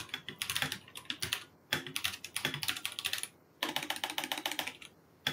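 Computer keyboard being typed on in quick runs of key clicks, with short pauses between runs.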